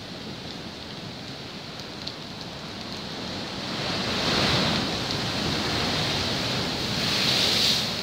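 Rough sea surf breaking against the rocks of a seawall. A steady rush of water swells into a louder crash about halfway through and again near the end.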